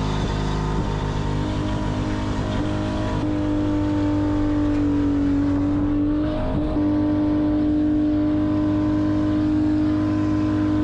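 Holden 3.8-litre Ecotec V6 held at high, steady revs during a burnout. The note stays level apart from a brief dip about six and a half seconds in.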